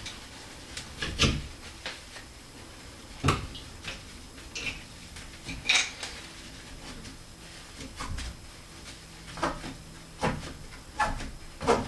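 Irregular knocks and short scrapes of a round tool wrapped in paper towel being twisted and pushed around inside a shower valve body to clean out its bore.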